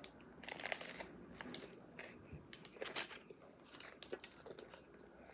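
Close-miked chewing of a crusty banh mi sandwich: faint, irregular crunches of bread crust.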